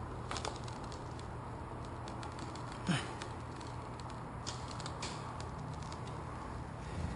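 Scattered small clicks and scrapes, the loudest a sharp scrape about three seconds in, from a pipe knife being worked through the urethane bead that holds the truck's back glass.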